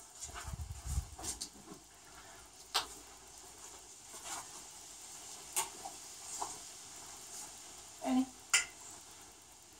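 Claws of a French bulldog clicking and scraping on a metal grooming table as it is set down and stands, with scattered sharp taps and two louder short sounds near the end.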